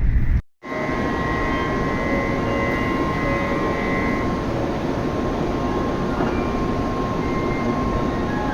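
Tokaido Shinkansen bullet train running at speed, heard inside a passenger car: a steady rushing rumble with a constant whine. It starts after a brief drop-out about half a second in.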